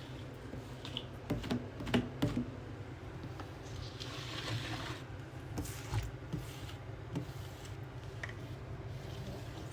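Kitchen items being handled: a cluster of light clicks and knocks about one to two seconds in, a soft rustling swish around four seconds in, and a few scattered taps later, over a steady low hum.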